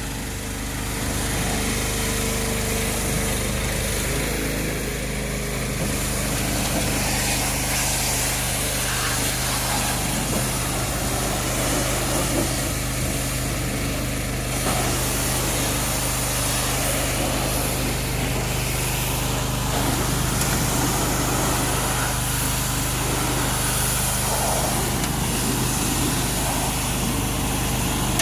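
Pressure washer running steadily, its motor humming under the constant hiss of the water spray.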